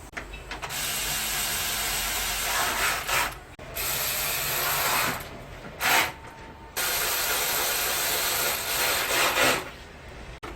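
A workshop power tool, mechanical and ratcheting, running in four bursts. The longest runs about three seconds and there is a brief one in the middle.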